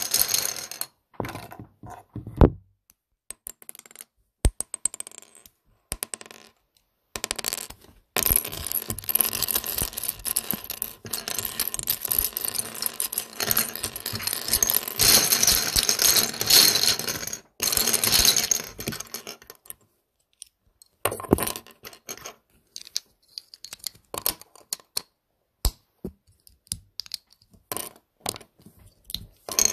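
Plastic LEGO bricks clicking and clattering against each other: scattered single clicks, then from about eight seconds in a dense, continuous clatter of many bricks for about twelve seconds, then scattered clicks again.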